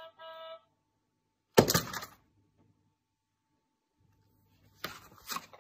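A baby's plastic electronic toy gives two short beeps, then about a second and a half in there is a single loud thunk, with a few softer knocks and taps near the end.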